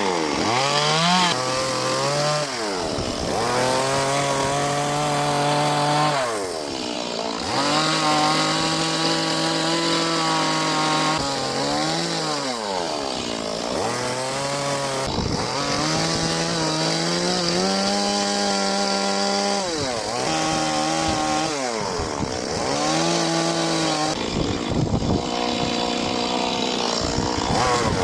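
Chainsaw cutting into wood, its motor pitch dropping and climbing back up again and again, every two to four seconds.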